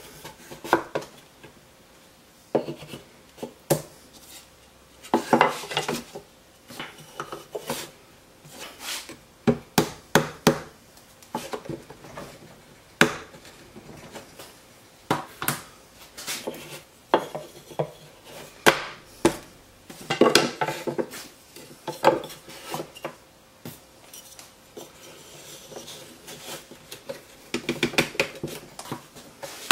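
Wooden clamp pieces and wedges knocked and set down on a wooden benchtop: irregular wood-on-wood knocks and clatter, with some sharper taps from a mallet locking the wedges in.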